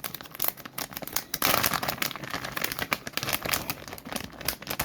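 Plastic lure packaging crinkling and rustling as it is handled, a dense run of irregular crackles.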